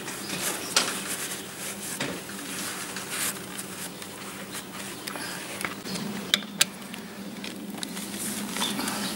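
Hands working at a tractor's front wheel hub: faint rustling of a paper towel wiping the hub nut and small scattered clicks of handling, with two sharper clicks about six seconds in, over a steady low hum.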